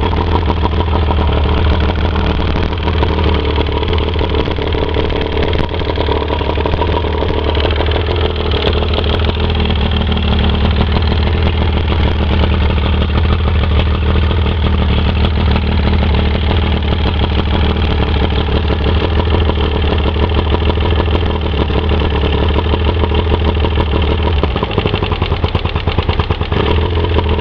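A 115 hp Mercury outboard motor idling with a steady, rapid clattering knock, which the owner takes for piston slap from a badly worn number-one piston. The engine note dips and turns a little uneven near the end.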